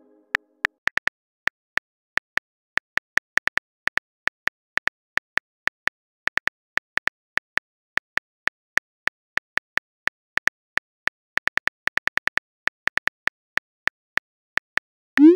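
Phone keyboard key-tap clicks as a message is typed, short and uneven at about three to four a second. They end with a short rising swoosh as the message is sent.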